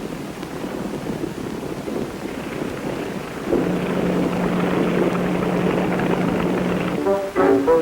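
Light propeller aeroplane's engine droning steadily, heard through an old, muffled film soundtrack, with a steady hum joining in about three and a half seconds in. Brass band music comes in near the end.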